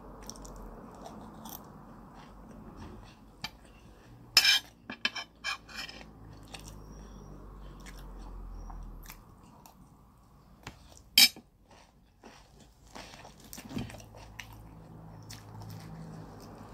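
Close-up eating sounds: chewing and mouth noises over a mouthful of jollof rice and chicken, with scattered sharp clicks and crunches. The two loudest clicks come about four and a half and eleven seconds in.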